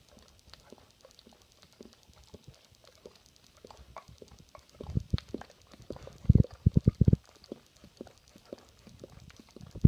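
Dog licking peanut butter off its nose: wet tongue and lip smacks and clicks, growing into runs of quick, louder smacks from about halfway through.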